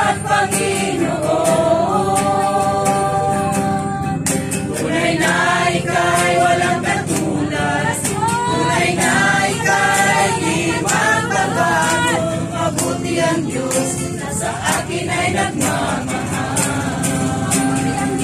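A small group of men and women singing a Christian worship song together, accompanied by a strummed acoustic guitar.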